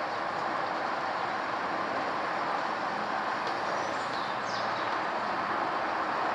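Boeing 787 Dreamliner passing overhead on approach, a steady jet rumble that slowly grows louder. A few faint high chirps are heard near the middle.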